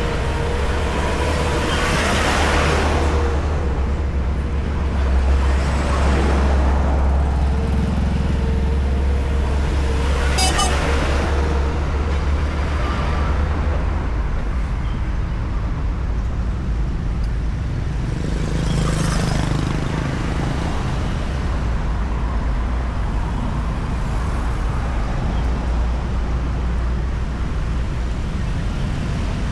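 Highway road traffic: a steady low rumble of engines and tyres, with vehicles passing close by about three times, the first a few seconds in, another around the middle and a third past the halfway point.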